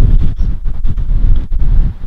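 Wind buffeting the microphone in loud, gusty low rumbles.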